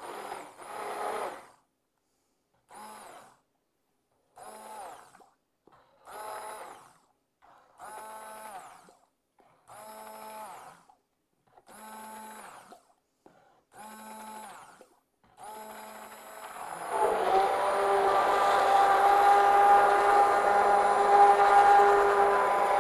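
Electric immersion (stick) blender mixing a liquid ice cream base of cream, milk, eggs and honey in a plastic bowl. It is switched on in short pulses of about a second each, roughly every two seconds, with the motor whirring up and back down each time. In the last six seconds it runs continuously and louder.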